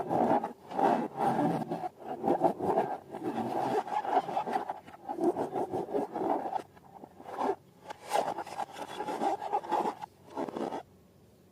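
Slime and balloons being worked, making rapid, irregular rubbing, scraping and squishing noises that pause briefly twice and stop shortly before the end.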